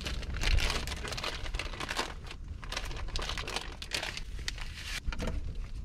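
Foil-lined plastic bag of panko breadcrumbs crinkling as it is handled and the crumbs are poured from it into a small bowl, in irregular rustling bursts.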